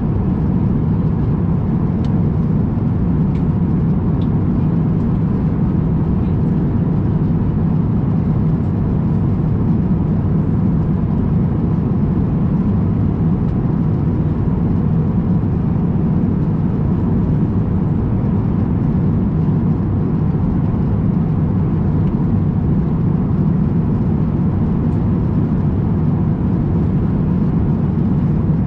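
Steady cabin noise of an Airbus A350-1000 airliner in flight, heard from an economy window seat: an even, unchanging low rumble of airflow and engines, with a faint steady high hum.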